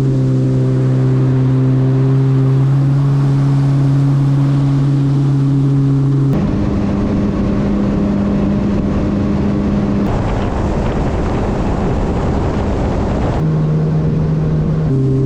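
Yamaha FX Cruiser HO WaveRunner's four-stroke engine and jet pump running at a steady cruising speed, with a noisy rush of water and wind. The drone holds steady, then jumps to a new pitch abruptly a few times.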